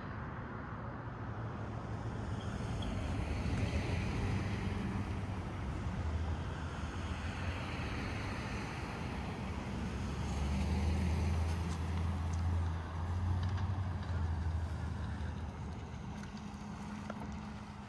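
Road traffic: motor vehicles passing, with engine hum and tyre noise that swell about four seconds in and again around eleven seconds, then fade away.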